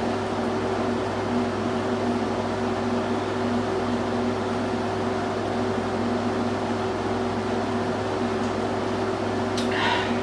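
Steady mechanical hum, like a running appliance motor, holding several low tones under a light hiss. A brief, sharper noise cuts in once near the end.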